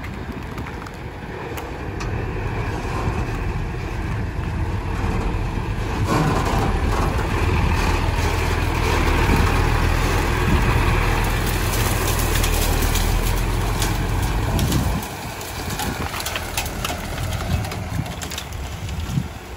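Diesel engine of a six-wheel dump truck running under load on a sandy track, growing louder as the truck comes close and then dropping suddenly about three-quarters of the way through. Near the end, many sharp cracks and scrapes as bamboo and brush snap against the truck.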